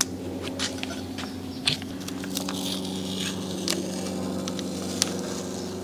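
Masking tape being peeled and crumpled off a freshly spray-painted engine block, giving irregular crinkling crackles and clicks, over a steady low hum.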